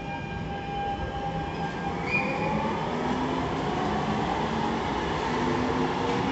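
An electric streetcar pulling away from the platform: its traction motors whine in several tones that climb steadily in pitch as it gathers speed, over the rumble of wheels on rail, with a brief high squeak about two seconds in.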